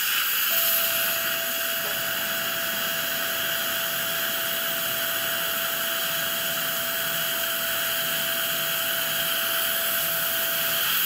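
Surgical suction hissing steadily while a dental implant drill in a contra-angle handpiece bores the implant site through a surgical guide. The drill motor gives a thin, steady whine that starts about half a second in and stops just before the end.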